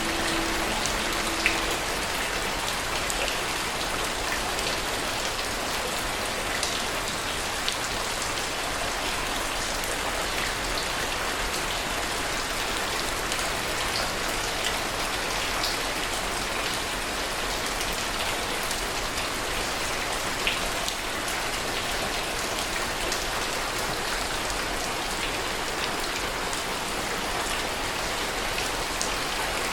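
Steady rain: an even hiss of falling rain with scattered single drops striking louder and closer, about a second and a half in and now and then after.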